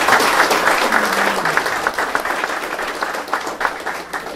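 A small audience applauding, the clapping thinning out and fading away towards the end.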